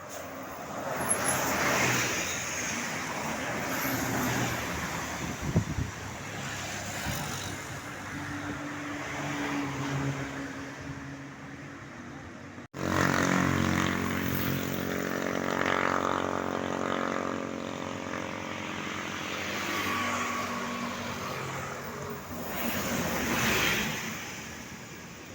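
Tour buses passing on the road, then a Basuri 'telolet' multi-tone musical horn sounding a chord of several steady tones for about nine seconds, its notes shifting a few times. Near the end another bus passes.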